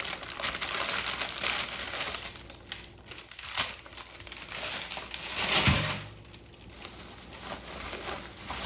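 Plastic packaging being handled and crinkled in irregular bursts while a shipping box is unpacked, with a dull thump a little over halfway through.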